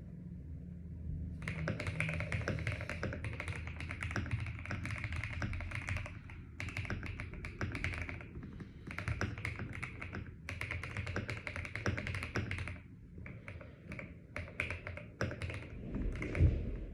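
Typing on a CIY Gas67 mechanical keyboard with lubed KTT Rose switches and Analog keycaps, foam- and Holee-modded. Fast runs of key clicks, broken by brief pauses, give way to slower, sparser keystrokes, with a deeper thud near the end.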